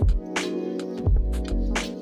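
Background music with a steady beat: deep kick-drum thuds and sharp snare hits over sustained chords.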